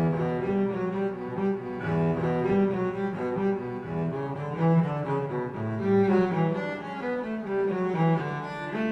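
Music on bowed strings: a low cello melody moving from note to note every fraction of a second.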